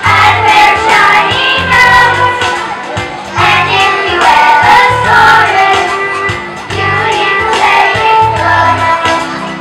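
A group of young children singing a Christmas carol together over instrumental accompaniment with a steady bass line.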